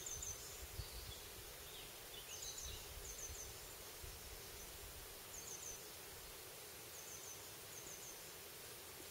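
Quiet outdoor ambience: a small bird repeatedly gives high, thin chirps in quick runs of two or three, about six runs in all, over a faint low rumble.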